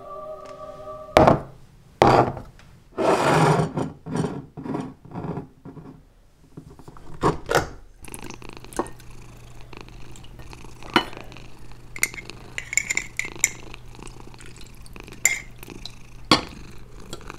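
Glass jars clinking and knocking as they are set into a stainless steel autoclave pot, with a short scraping rustle about three seconds in. From about eight seconds, a fork clinks and scrapes against a glass jar and plate as canned beef is pulled out, over a steady low hum.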